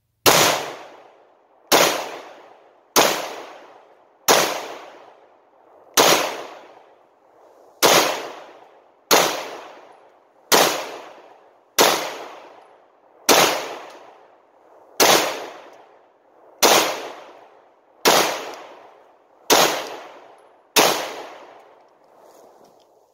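Glock 19 Gen 4 9mm pistol fired fifteen times at a slow, steady pace, about one shot every second and a half. Each shot is followed by an echo that fades over about a second.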